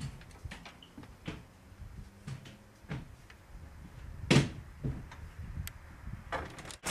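Scattered clicks and knocks of a door being handled, with one louder thump a little over four seconds in.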